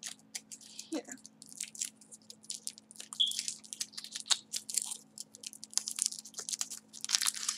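Foil wrapper on a small chocolate egg crinkling and crackling in quick, irregular rustles as it is peeled off by hand.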